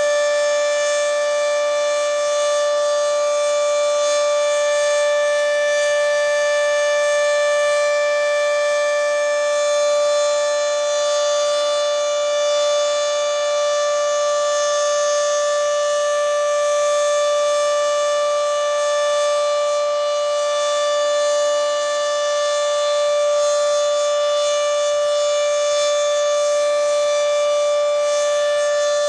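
Federal Signal 2T22A dual-tone rotating tornado siren sounding its steady Alert tone, a held chord that swells and fades slightly as the head rotates. Its top is clogged, according to the uploader.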